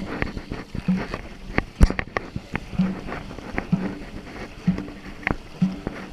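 Dragon boat drum beaten about once a second in time with the paddle strokes, with paddles splashing and knocking in the water around it. One sharp knock, just under two seconds in, is the loudest sound.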